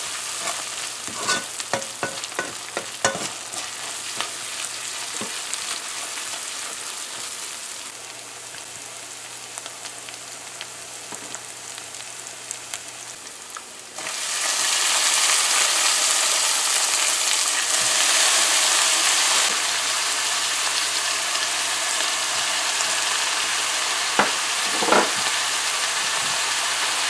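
Onion, garlic and tomato paste sizzling in hot oil in a pot, with a spoon clicking and scraping against the pot during the first few seconds. About halfway through, the sizzling suddenly gets louder as shredded cabbage goes into the hot pot, and a couple of soft knocks come near the end.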